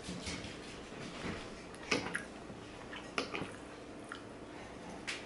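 Soft eating sounds: a mouthful of spaghetti being chewed, with a few light clicks and taps as a metal fork twirls pasta against a ceramic plate.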